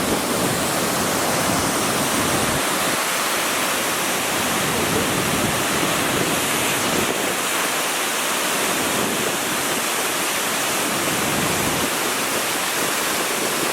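Waterfall cascading: a steady, even rush of falling water with no breaks.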